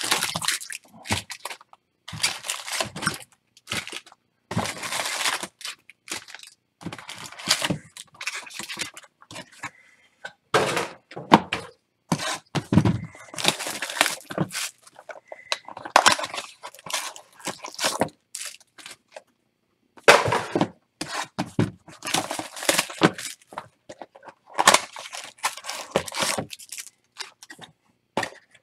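Boxes of baseball trading cards being opened and handled: cardboard and wrapping torn open, and packs knocked and set down. The sounds come in irregular bursts of rustling and knocks with short pauses between them.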